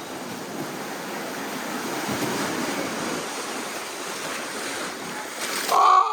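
Rushing, splashing water of a river rapids raft ride, a steady hiss. Near the end comes a short, loud cry that falls in pitch.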